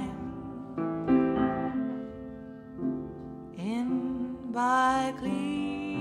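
Upright piano playing soft sustained chords as a sung ballad accompaniment. A little past halfway a woman's voice comes back in, sliding up into held sung notes over the piano.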